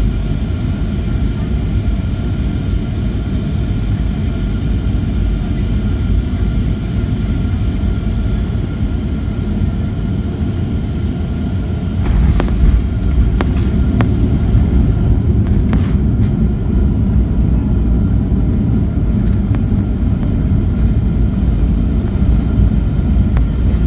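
Cabin noise inside a Boeing 737-800: a steady low rumble with the whine of its CFM56-7B jet engines. About halfway the rumble gets louder, and a few sharp knocks sound.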